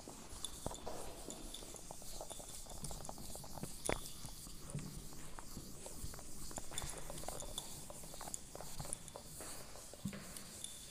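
A chalkboard duster being rubbed in strokes across a chalkboard to wipe off chalk writing, a steady scrubbing with scattered light taps and knocks, one sharper knock about four seconds in.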